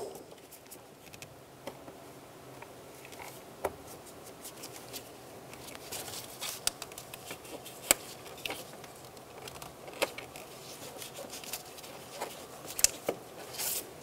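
Hands working a spring hose clamp with pliers on a rubber air-intake hose: a sharp click at the start, then scattered light clicks and rustles of metal, rubber and gloves, a few of them louder.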